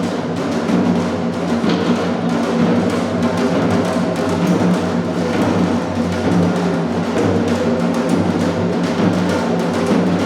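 Drums played continuously in a fast, steady run of strokes: percussion music.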